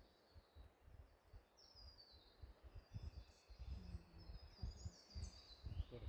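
Faint birdsong: repeated short, high chirping phrases that fall in pitch, over a low, irregular rumble.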